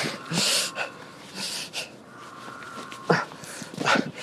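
A man breathing hard close to the microphone: several loud, noisy breaths, each about half a second to a second apart.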